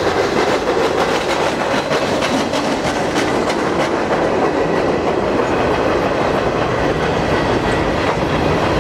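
Tail end of a freight train rolling past: steel wheels rumbling on the rails, with a run of sharp clickety-clack over the rail joints in the first half as a flatcar and the last tank car go by.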